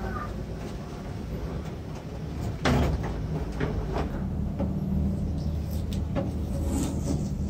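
The plastic rear housing of a CRT monitor being fitted over its chassis: one sharp knock about two and a half seconds in, then several lighter plastic clicks and taps, over a steady low hum.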